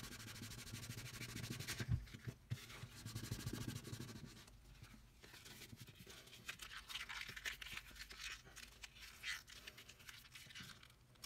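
Faint rubbing, scratching and crinkling as hands crumple and rub a small piece of alcohol-dampened vegetable-tanned leather, with a light knock about two seconds in.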